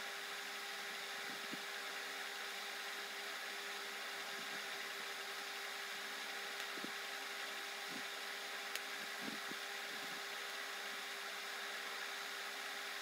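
Steady low-level hum with an even hiss, and a few faint soft clicks as metal knitting needles work purl stitches.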